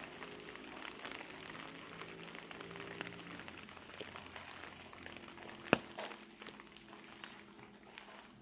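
Rain dripping and pattering in scattered, irregular drops, with one sharper, louder drip about two thirds of the way through.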